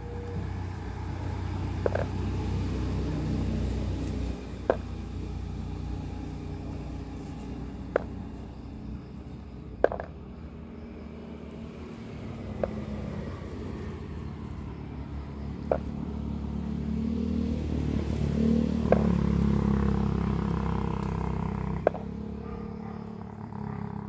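Low engine rumble of a motor vehicle, swelling twice as it grows nearer and fades. Sharp clicks sound about every two to three seconds over it.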